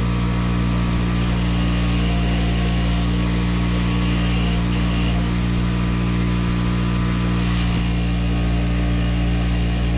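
Electric wire wheel running with a steady motor hum, scrubbing rust and grime off a vise part. The scratchy hiss swells while the part is pressed to the wheel, in spells from about a second in to five seconds, and again briefly near the eighth second.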